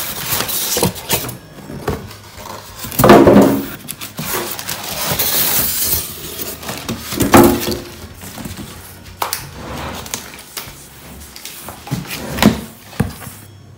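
Unboxing packaging being handled: styrofoam packing blocks scraping and squeaking against cardboard, and plastic wrapping crinkling, in irregular rustles with two louder bursts about three and seven seconds in.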